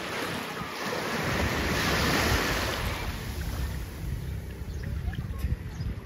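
Small waves washing in over a sandy shore, one wash swelling about two seconds in and then easing off, with wind buffeting the microphone in a low rumble.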